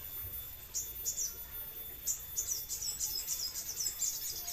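A caged sogon songbird singing: a couple of short high chirps, then from about two seconds in a fast, unbroken run of high twittering notes.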